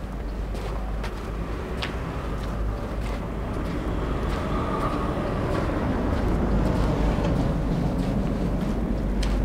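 Street traffic: a motor vehicle's engine rumble growing steadily louder as it approaches, with a faint whine around the middle.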